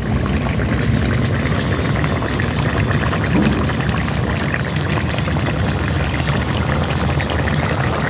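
Crab curry boiling in the pan: a steady bubbling with many small pops.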